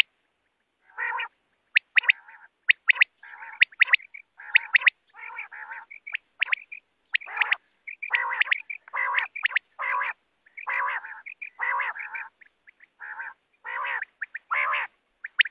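Quail (batair) calling over and over: short sharp notes mixed with longer harsh, buzzy calls, coming about twice a second.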